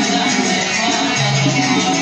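Yemeni dan badawi music with oud, a continuous instrumental passage with held low notes that shift in pitch.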